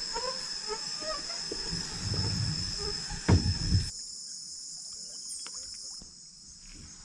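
Rainforest insects calling together in a steady, high-pitched drone. A few short chirping calls sound in the first three seconds, and a couple of low thuds come about three and a half seconds in.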